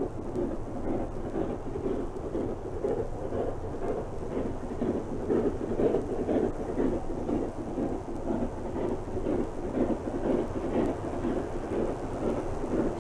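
Continuous rumbling noise with a fast, uneven flutter.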